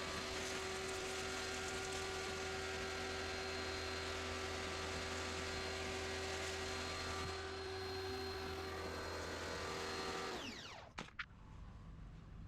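A small electric power tool runs at a steady speed with a constant whine, then is switched off about ten seconds in and spins down. Two sharp clicks follow.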